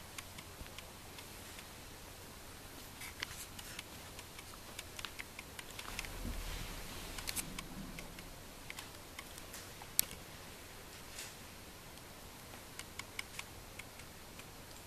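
Soft rustling of fabric and scattered light clicks and taps as a kitten scuffles with a person's hand and trouser leg, clawing and kicking. One sharper click comes about ten seconds in.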